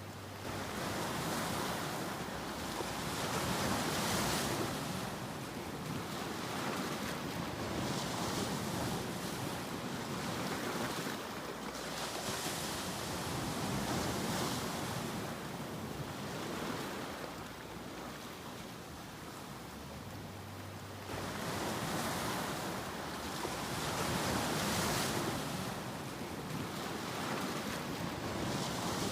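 Ocean waves breaking and washing up the shore, the surf surging and ebbing every few seconds.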